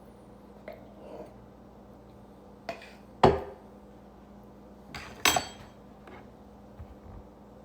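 A utensil clinking and knocking against dishes: a few light knocks, with two louder clanks about three and five seconds in, the second ringing briefly.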